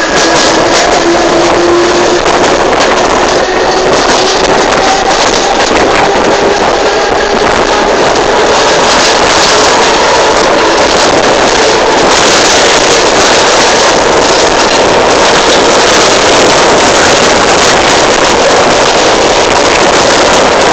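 Electric suburban train unit 1024 running loud, a steady heavy rush of noise with a motor whine slowly rising in pitch as it gathers speed. The owner calls it 'roncando muito', roaring a lot.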